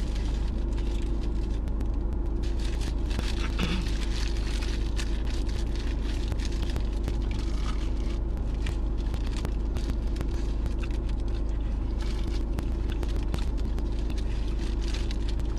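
Steady low hum of an idling car, heard inside the cabin, with scattered small clicks and crackles over it.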